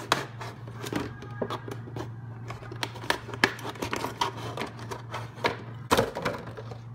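Kitchen knife sawing through a thin plastic milk bottle, the plastic crackling and clicking irregularly, with a louder crack about six seconds in. A low steady hum runs underneath.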